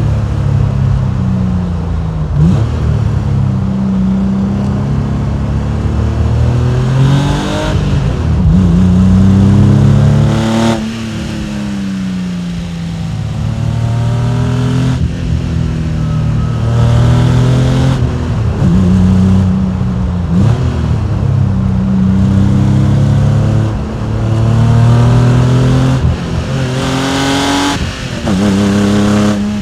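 Porsche 993 Carrera's air-cooled, naturally aspirated flat-six engine and exhaust under hard driving, its pitch climbing under acceleration and dropping sharply again and again as it is shifted through the manual gearbox or lifted off.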